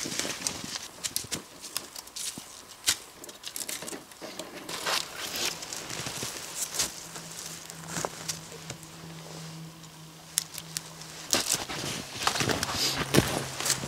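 Close rustling, crackling and crunching of snow, twigs and clothing while someone handles brush and moves around in the snow, with a faint steady low hum through the middle.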